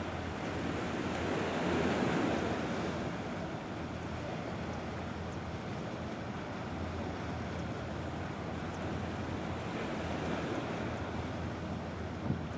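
Small waves washing against the rocky shore, with wind buffeting the microphone; the wash swells up about two seconds in, then settles.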